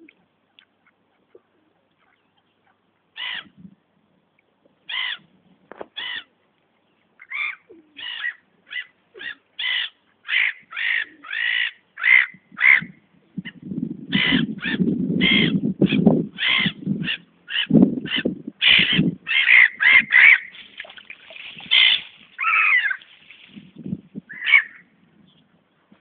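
Waterbirds calling: a long run of short, repeated calls that start about three seconds in and come two or three a second through the middle, with a low rumble for a few seconds midway.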